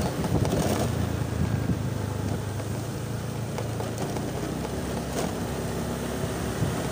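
Motor scooter's small engine running steadily at low speed, a low even drone, with road and wind noise on the rider-mounted microphone.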